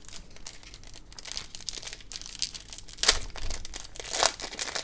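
Plastic trading-card pack wrapper crinkling as it is handled and torn open, with louder crackles about three seconds in and again about a second later.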